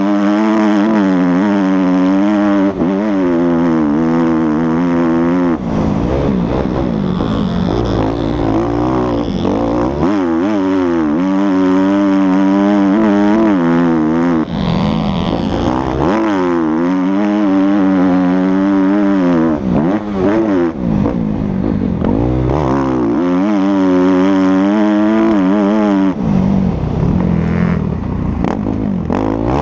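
Motocross bike engine running hard on a track lap, its revs climbing and dropping over and over as the rider accelerates, shifts and backs off for corners.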